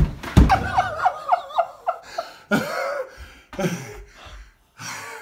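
A thump or two as a man falls to a hardwood floor, then laughter in a quick run of short bursts, followed by breathy laughs and gasps.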